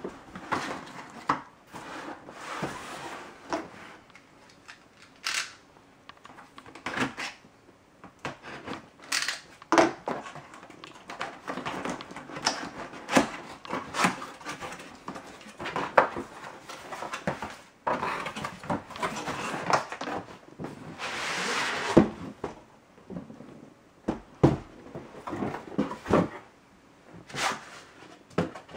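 Cardboard laptop retail box being handled and opened by hand: irregular taps, knocks and scrapes of cardboard. About twenty seconds in comes a longer sliding scrape of cardboard on cardboard.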